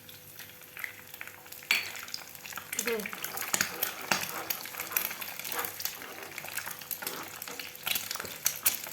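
Egg frying with garlic in olive oil in a pan, sizzling and crackling, the crackle growing louder about two seconds in.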